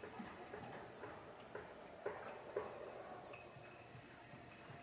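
Insects trilling steadily in a single high-pitched band, with two light knocks a half second apart about two seconds in.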